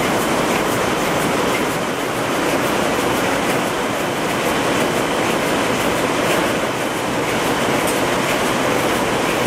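Textile machinery in a towel factory running with a loud, steady, rapid mechanical clatter.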